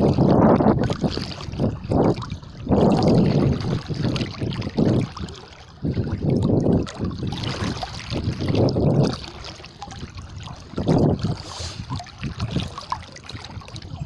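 Someone wading through waist-deep floodwater against a current, the water sloshing and surging around the legs in irregular pulses with each stride.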